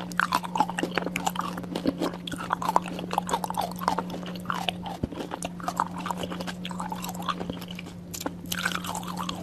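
Close-miked eating: biting and chewing honeycomb and frozen fruit, a dense run of wet, sticky clicks and small crunches, over a steady low hum.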